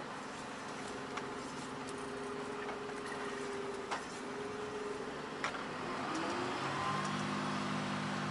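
Freight truck heard from inside the cab while driving: steady engine and road noise, with a few sharp clicks. About six seconds in the engine note shifts, rising briefly before a steadier, lower hum takes over.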